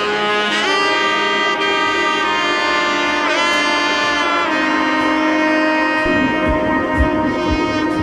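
Background music: a lead melody of long held notes with pitch slides, and a steady low drum beat of about two a second coming in about six seconds in.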